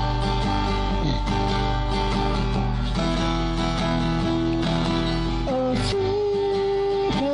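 A band's demo recording: strummed guitar chords with bass, and a held melody note entering about five and a half seconds in.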